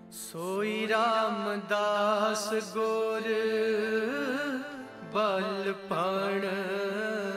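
Devotional music track: a solo voice sings a slow, ornamented melody over a steady drone, fading in from silence at the start.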